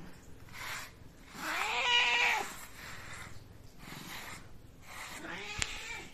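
Domestic cat meowing while being brushed: one long drawn-out meow about two seconds in and a shorter one near the end, between soft rasping strokes of a pin brush through its fur.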